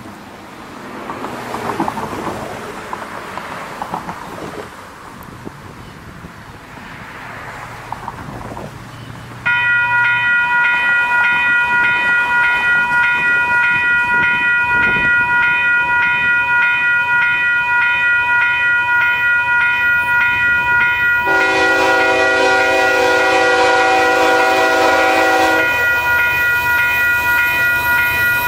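Wind gusts at first, then about nine seconds in a railroad grade-crossing warning bell starts up and rings steadily with a regular pulse as a BNSF freight train approaches. Near the end the lead locomotive's multi-chime air horn sounds one long blast of about four seconds, then starts another.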